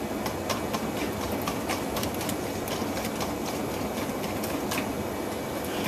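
A wire whisk beating a thick egg and cream cheese custard in a stainless steel bowl set over a pot, clicking and scraping against the metal a few times a second over a steady hiss. The filling is being whisked over medium heat until it thickens like a custard.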